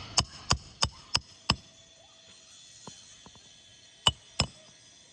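Hammer blows on a shingle roof: a quick run of five sharp strikes, about three a second, then a pause and two more strikes near the end.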